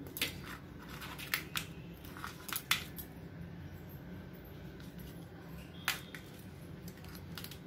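Crab shell cracking and snapping as the leg and claw tips are broken off by hand: a run of sharp cracks in the first three seconds and one more about six seconds in, over a faint steady hum.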